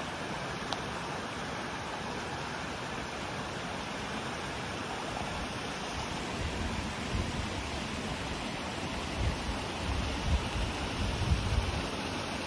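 Steady outdoor rushing noise, with low gusts buffeting the microphone in the second half.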